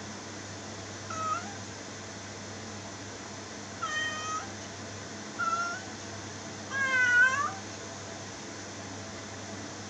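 Ginger-and-white cat meowing four times: short meows about a second in and around four and five and a half seconds, then a longer, louder meow at about seven seconds, over a steady hiss.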